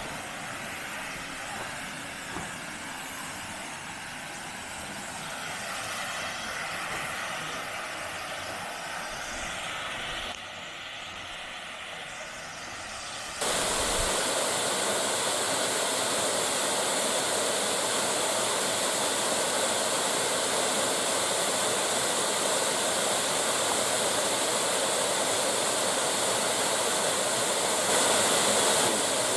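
Steady rushing of falling water from a waterfall. After a quieter, more uneven stretch, it jumps abruptly louder and more even about 13 seconds in.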